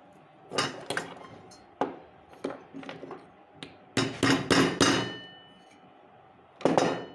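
Sharp metallic knocks and clinks, about a dozen, as a ball bearing is tapped down into its seat in a ceiling fan's housing. The seat is bedded with epoxy putty to hold a loose bearing. A quick run of strikes comes about four seconds in, some ringing briefly, and a last knock near the end.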